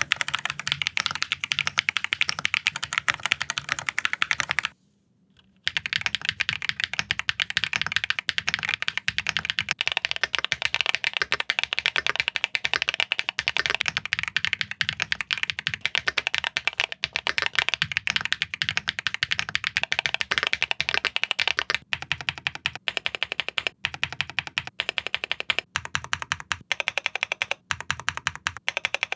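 Mechanical keyboard being typed on fast in a sound test, a dense run of clacky keystrokes. There is a short break about five seconds in, and the strokes come more spaced and distinct toward the end.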